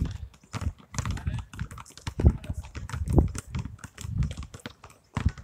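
Several basketballs being dribbled on an asphalt court: many irregular, overlapping bounces.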